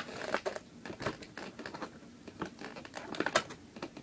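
Packaging being crinkled and pulled off a boxed action figure, in irregular crackles and clicks with a few louder snaps.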